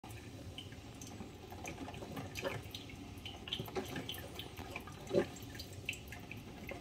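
Mr. Coffee drip coffee maker brewing: coffee trickling into the glass carafe with scattered drips and small gurgles, one louder gurgle about five seconds in.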